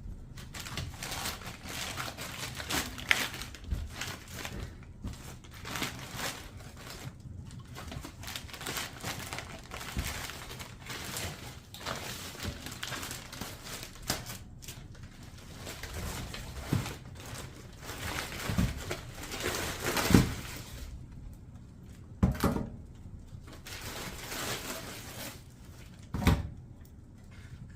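Paper crumpling and rustling, most likely newspaper being balled up for kindling, then several sharp knocks in the second half, the loudest about two-thirds of the way in.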